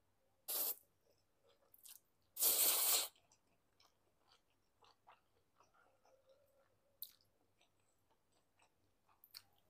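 A person eating noodles: two short, loud noisy sounds near the start, then soft chewing and small clicks.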